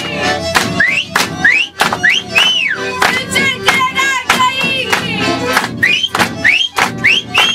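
Accordion playing a lively Maramureș folk tune with a steady beat, while voices give high shouts that swoop sharply upward, several in quick succession: traditional strigături, shouted rhyming calls.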